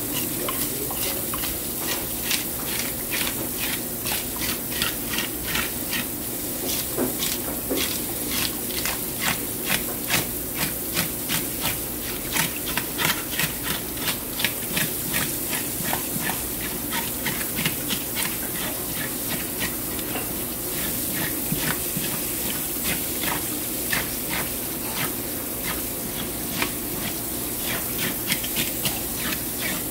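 Fish scaler scraping scales off a whole fish on a plastic cutting board, in quick repeated strokes a few times a second, over a steady hiss.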